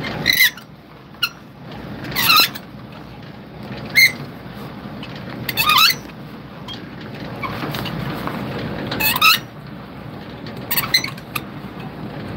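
Semi-trailer landing gear being hand-cranked up, giving a sharp squeak with each turn, roughly every two seconds with one longer pause midway; the gear is stiff, 'kind of tight'.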